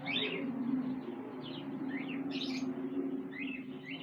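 Forpus parrotlet chirping: short high chirps at irregular intervals of about half a second to a second, over a steady low hum.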